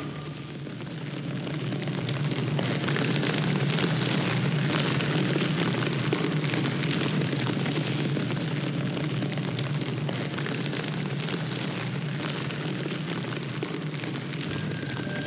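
Sound effect of a large fire burning: dense crackling over a low rumble, swelling in over the first few seconds and then slowly easing.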